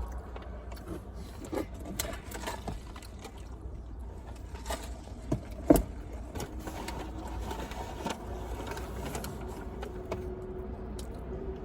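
Low steady rumble of a car cabin, with scattered light clicks and taps and one sharper knock about six seconds in; a faint steady hum joins about halfway through.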